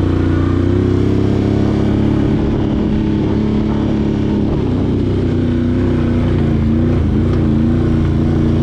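Can-Am Outlander 850 XT ATV's V-twin engine running at a steady riding speed, its pitch rising slightly at the start and dipping briefly about seven seconds in before picking back up.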